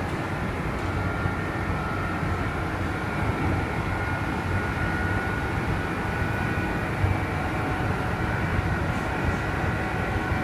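Running noise of a Kintetsu 2610 series train (set X25) heard from inside the car: a steady low rumble with several high tones over it, the mix of high and low sounds that makes this set's running noise unusual.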